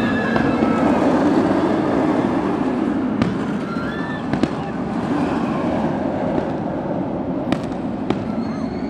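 Inverted steel roller coaster train running along its track, a dense rumble that is loudest at first and slowly fades, with several sharp firework bangs over it.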